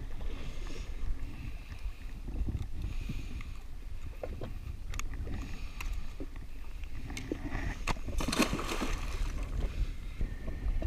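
Open-sea water lapping against a jet ski's hull, with low wind rumble on the microphone. There are scattered small clicks and knocks from fishing tackle being handled, and a brief splashy hiss about eight seconds in.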